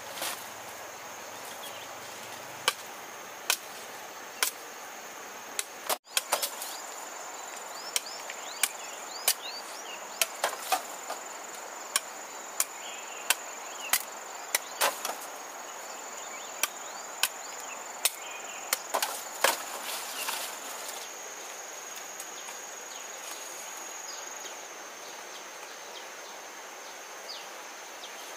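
Machete blade chopping sugarcane stalks: a run of sharp single strikes, about one a second, that stop about two-thirds of the way through. Insects whine steadily in the background.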